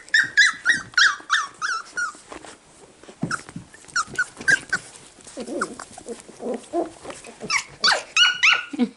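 Six-week-old cockapoo puppies whining and yipping in a run of short, high, falling cries, with lower growly play noises in the middle.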